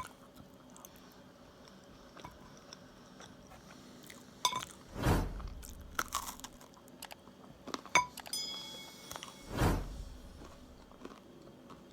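A person biting into and chewing toasted spelt bread, with two louder crunching bites about five and ten seconds in and quieter chewing between. There is a short ringing clink about two-thirds of the way through.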